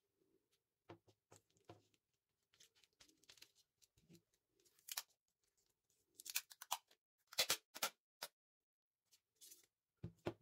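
Clear cellophane tape and paper being handled and pressed down: quiet scattered rustles and crackles, with sharper, louder crackles in the second half.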